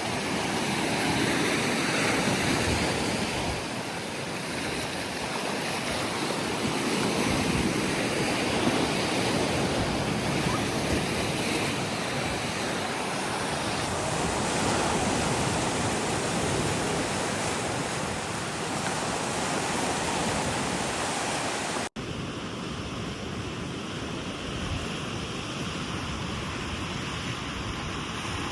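Ocean surf breaking and washing on a beach, a steady rush of noise that swells and ebbs every few seconds, with some wind on the microphone. About three quarters through it cuts abruptly to a quieter, steadier outdoor hiss.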